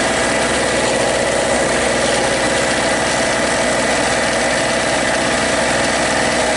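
Harbor Freight Storm Cat small two-stroke portable generator running at a steady, unchanging speed.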